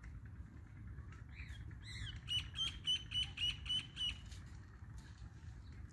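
Rufous treepie calling: a couple of rising notes about a second and a half in, then a quick run of about seven sharp, identical notes, roughly four a second. A steady low rumble runs underneath.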